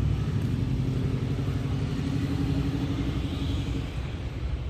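A motor vehicle's engine running nearby with a steady low hum that eases off slightly near the end.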